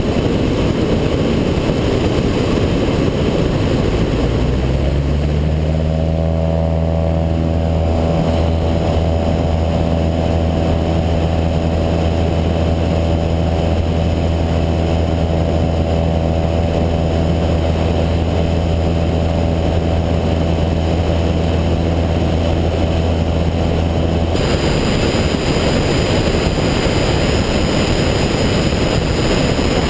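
Cessna 172's engine and propeller at takeoff power through the takeoff roll and climb-out, mixed with heavy wind rush over the wing-mounted microphone. A steady low engine hum rises slightly about five seconds in and holds evenly. It drops out abruptly about 24 seconds in, leaving mostly wind rush.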